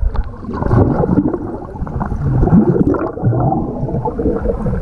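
Underwater sound in a swimming pool: bubbling and churning water as a child swims past the camera, heavily muffled, with wavering muffled tones running through it.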